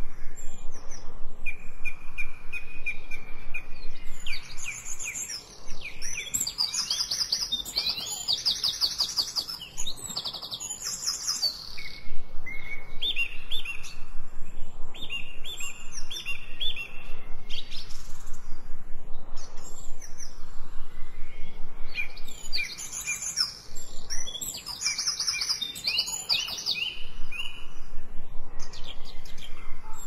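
Songbirds singing and chirping, several voices overlapping in rapid high trills and repeated notes, with two busier stretches of song and sparser chirps between.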